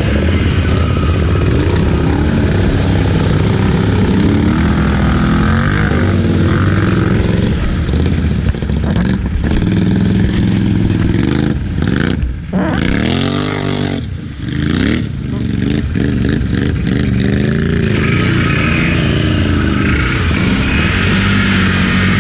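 ATV engine running under load while riding, its revs rising and falling. Twice, about twelve and fourteen seconds in, the throttle briefly drops off and the revs climb again.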